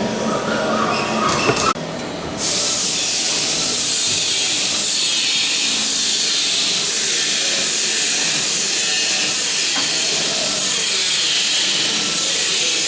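Workshop noise with a low hum, then, after an abrupt change about two seconds in, a loud steady hiss that carries on unchanged.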